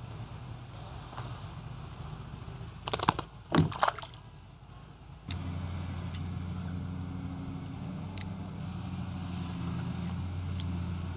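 A steady low motor hum that steps up suddenly to a louder, even drone about five seconds in, with a few short sharp knocks about three seconds in.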